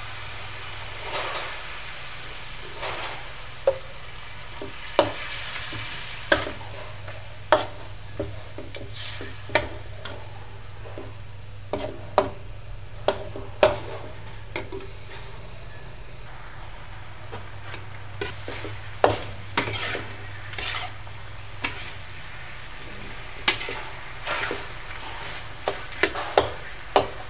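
Metal spatula stirring and scraping chicken pieces around a steel wok over a sizzle, with sharp, irregular clacks of the spatula against the pan and a low steady hum underneath.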